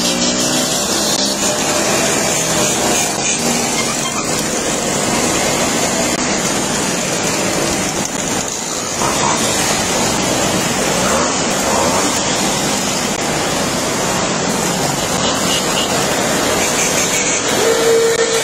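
A procession of 50cc two-stroke mopeds riding past one after another, their small engines running in a steady, unbroken stream of noise. A brief steady tone sounds near the end.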